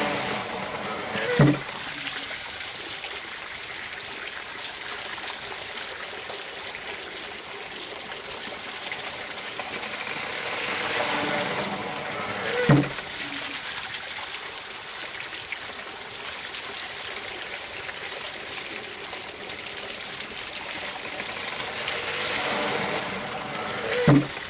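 Water trickling steadily from a monjolo's feed, with three heavy wooden thumps about eleven seconds apart, each after a brief swell of rushing water: the monjolo's hammer beam dropping onto its mortar each time its trough empties.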